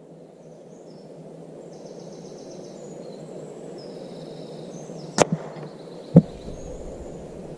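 Quiet woodland ambience with high bird chirps, then about five seconds in a single shot from a .177 sub-12 PCP air rifle: a sharp crack with the pellet's strike just after it. About a second later comes a duller thud.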